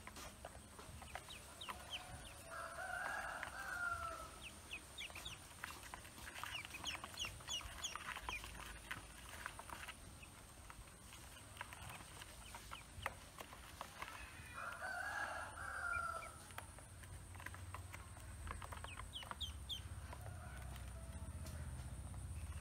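Ducklings peeping, many short high chirps coming in clusters. A longer, lower bird call sounds about three seconds in and again near the middle.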